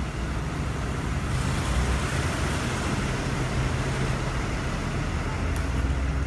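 Steady low mechanical drone from a utility work truck running at the kerb, with a rushing hiss that grows louder about a second in.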